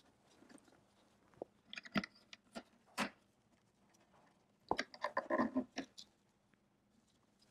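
Plastic cable tie being handled and pulled tight: a few separate sharp clicks, then a quick run of rapid clicks about five seconds in as the tie is drawn through its head.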